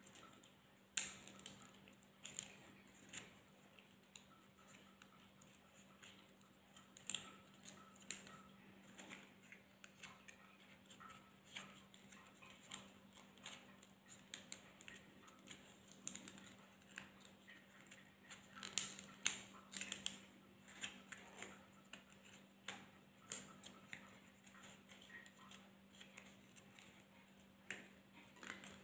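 Dry areca-palm leaf petals crinkling and clicking as they are handled and tied one by one onto a wire stem to build up a rose, in scattered small clicks and crackles over a faint steady hum.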